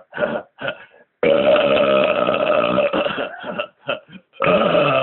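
A man's deliberate belches, forced up by swallowing air: a few short choppy ones, then one long drawn-out belch of about two seconds, then another long belch starting near the end.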